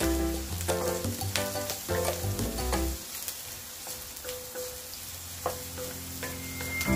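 Chopped onion sizzling in a nonstick wok while a wooden spatula stirs it, with scattered scrapes and knocks of the spatula on the pan. Background music plays under it and drops out about three seconds in.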